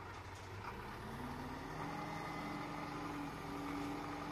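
Heavy diesel engine of construction machinery running; its revs rise about a second in and then hold steady at a higher pitch.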